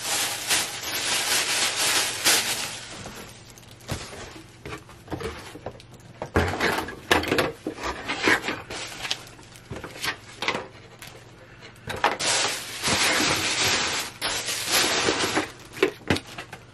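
Hands opening a cardboard box and handling the paper inside: rustling and scraping near the start and again near the end, with sharp taps and knocks in between.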